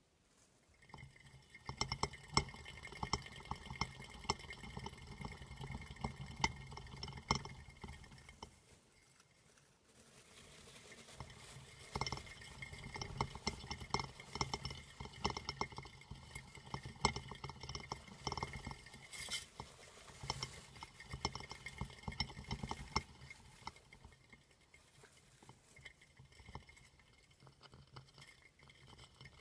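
Green plastic flying-saucer hamster wheel spinning and rattling under running dwarf hamsters: a fast patter of clicks over a steady whir. It goes almost quiet about eight and a half seconds in and starts up again at about ten seconds.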